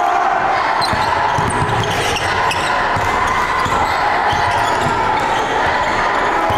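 Basketball dribbled on a hardwood gym floor, a run of repeated thuds over the chatter of a crowd in a large gymnasium.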